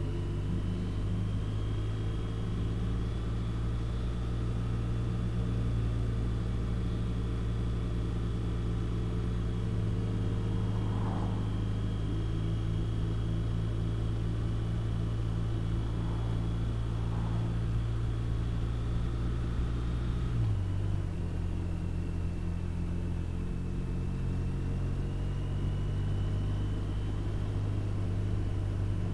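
Touring motorcycle's engine running steadily at road speed, heard from the bike itself, with a steady rumble. About two-thirds of the way through, the engine note drops to a lower pitch.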